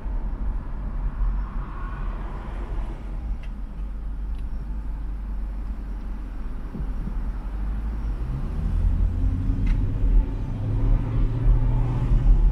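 Car road and engine noise heard from inside the cabin: a steady low rumble, quieter mid-way while creeping in traffic, then louder with a steady engine drone as the car gets moving again about eight seconds in.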